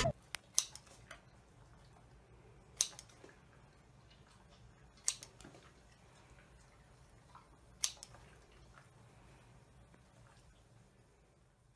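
Scissors snipping off pieces of a food treat: a sharp snip every two to three seconds, with a few lighter clicks near the start.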